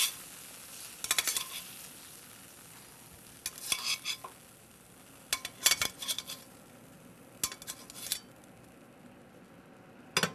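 Metal tongs clinking and scraping against a stainless steel sauté pan as cooked green beans are lifted out onto a platter, in short bursts every second or two that stop about eight seconds in. A faint sizzle from the still-hot pan fades away early on.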